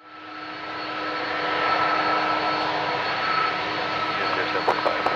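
Airbus A330's twin jet engines running at low thrust as it taxis, a steady whine of several held tones over a rushing noise, fading in from silence over the first second or so.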